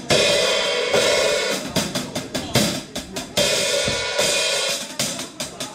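A drum kit played hard: repeated cymbal crashes over snare and drum hits, with the cymbals ringing on between strokes.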